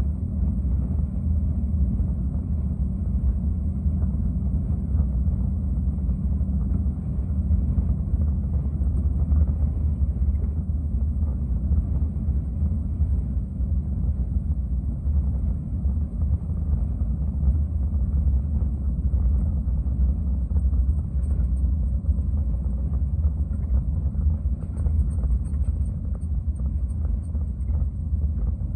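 Log truck's diesel engine and road noise heard inside the cab while cruising at highway speed: a steady low rumble.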